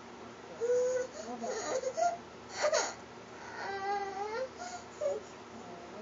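A two-year-old toddler making a string of short, high-pitched whiny cries and vocal sounds. The loudest is a sharp squeal about two and a half seconds in.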